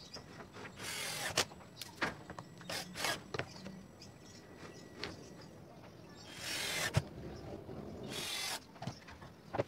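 Cordless drill driving screws into plywood in four short bursts of under a second each, with a few sharp knocks of wood and tool handling between them.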